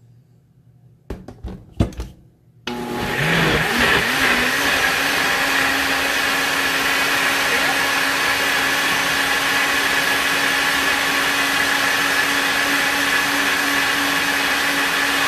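Nutribullet blender cup knocked into place on the base, then the motor starts about three seconds in. It spins up and runs at a steady whine, liquefying cooked hot peppers into sauce.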